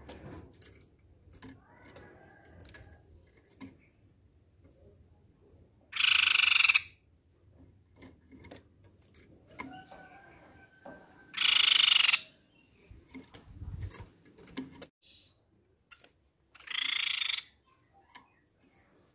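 Crescent-chested babbler (tepus pipi perak) giving three short rasping calls about five seconds apart, each under a second long, the last one softer. Faint clicks and rustles lie between the calls.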